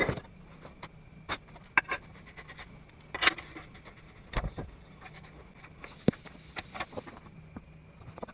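Scattered clinks and knocks of steel suspension parts being handled on a workbench: a steering knuckle with its brake caliper and rotor. A faint steady hum runs underneath.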